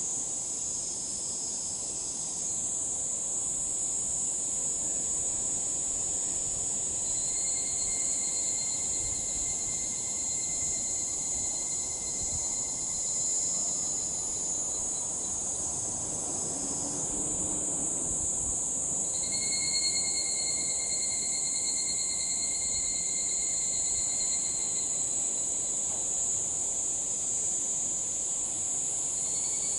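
Higurashi evening cicadas (Tanna japonensis) calling: a steady high-pitched insect chorus, with separate pulsing calls of several seconds each coming in one after another, three times.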